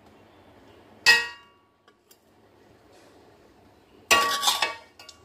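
A sharp clink on a white ceramic bowl about a second in, ringing briefly. Just after four seconds, a longer clatter and scrape of a metal serving spoon against the bowl as stir-fried vegetables and shrimp are tipped in, followed by a couple of light ticks.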